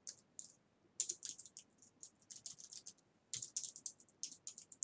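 Typing on a computer keyboard: faint, quick runs of keystrokes with short pauses between them, starting about a second in, as a password is entered.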